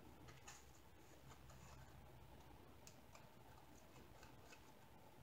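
Near silence, with faint paper rustling and light ticks from fingers working a paper strip along the edge of a plastic magnetic frame.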